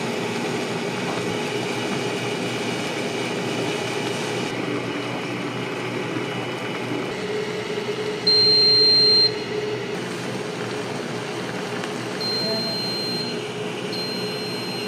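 Hauscook automatic ramen cooker heating a bowl of instant ramen, with a steady rushing hum from the machine and the boiling broth. About eight seconds in, the cooker gives one long high beep as its timer reaches zero and the cooking is done, and two shorter beeps follow near the end.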